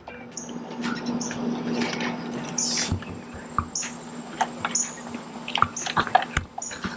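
A bird feeder being handled while a trapped bird is worked free: scattered light clicks, taps and rustling, with a few short high squeaks.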